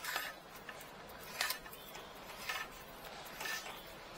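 Four faint, sharp clicks, roughly a second apart, over a low background hiss.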